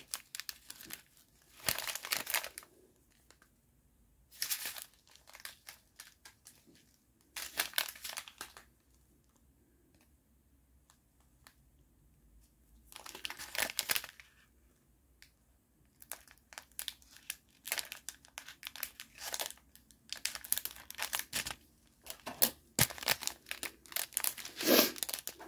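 Plastic packaging bags crinkling as they are handled, in separate bursts with pauses between, busier and more continuous over the last several seconds.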